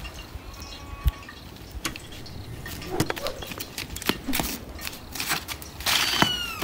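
Scattered knocks, clicks and scuffs from children playing on a rope swing, with a short high cry that falls in pitch near the end.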